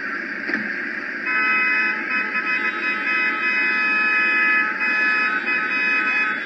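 Car horn sounded in one long steady blast, starting about a second in and held for about five seconds, over road-traffic noise.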